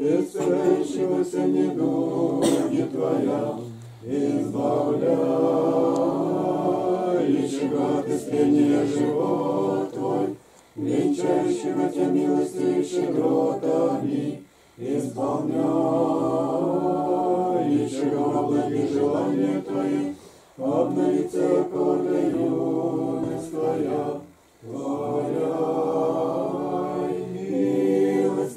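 Unaccompanied Orthodox liturgical chant sung by several voices, in long phrases separated by short breaths about five times.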